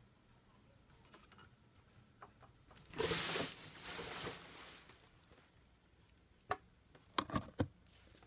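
Handling noise from opening a cupboard and taking out a jar: a short rustling scrape about three seconds in and a softer one just after, then a click and a quick run of three or four sharp knocks near the end as a plastic-lidded jar is grabbed on the shelf.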